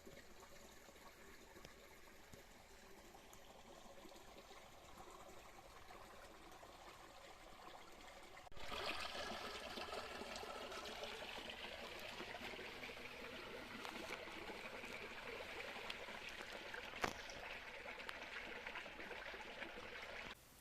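Stream water running through a woodland brook, faint at first, then louder after an abrupt cut about eight seconds in, with one short click near the end.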